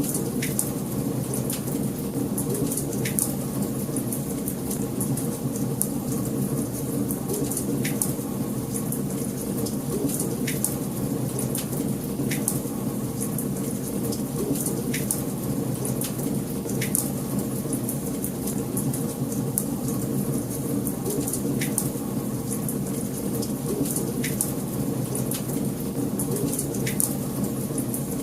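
Wood fire burning in a fireplace: a steady low rumble of flames with sharp, irregular crackles and pops every second or two.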